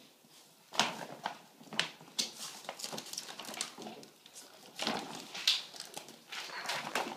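Plastic dog food bag rustling and crinkling in irregular bursts as puppies nose and push into it.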